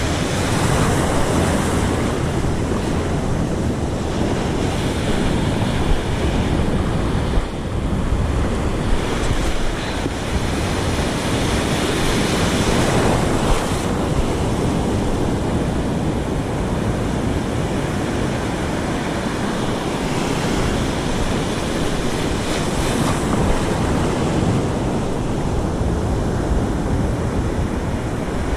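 Ocean surf breaking and washing on the beach, a steady rush that swells as waves come in, with wind buffeting the microphone.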